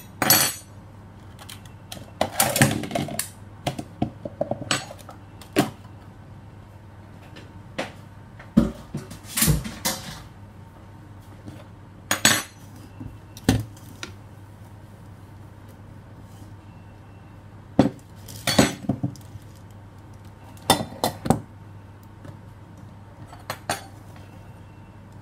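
Irregular clinks and knocks of kitchen utensils and mixing bowls being handled, in scattered clusters with short gaps between them.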